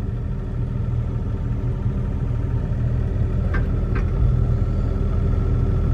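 John Deere 35D compact excavator's diesel engine running steadily with a low rumble while the bucket is worked, the sound rising slightly. Two brief high-pitched sounds come about half a second apart midway through.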